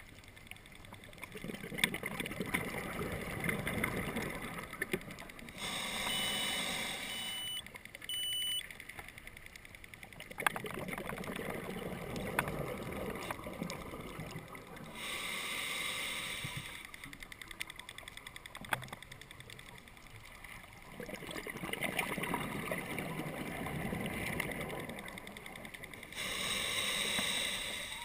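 A scuba diver breathing through a regulator underwater. Long bubbling, rumbling exhalations alternate with shorter hissing inhalations, about three breaths in all, one roughly every ten seconds.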